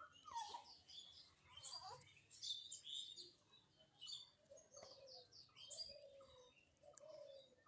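Faint chirping and twittering of small birds in the background, with short high calls throughout and a few lower falling notes in the second half.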